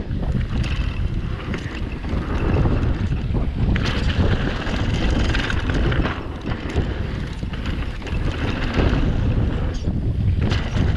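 Wind rushing over an action camera's microphone during a downhill mountain-bike run, with steady rumble and scattered knocks from the bike going over rough ground.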